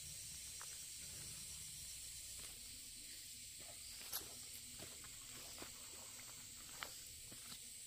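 Quiet outdoor ambience: a steady high hiss over a low rumble, with a few light clicks or taps, the clearest about four seconds in and another near the end.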